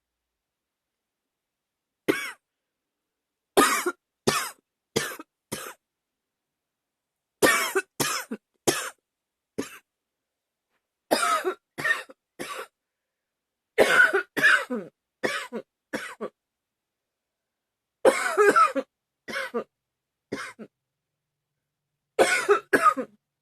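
A woman coughing in about seven short bouts of two to five hard coughs each, with pauses of a second or two between bouts.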